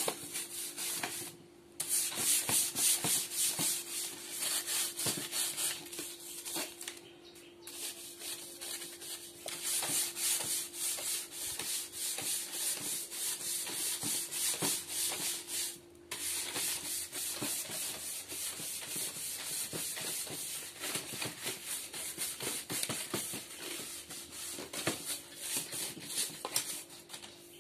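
Stiff brush scrubbing a plastic rack with detergent powder: fast, scratchy back-and-forth strokes, pausing briefly three times.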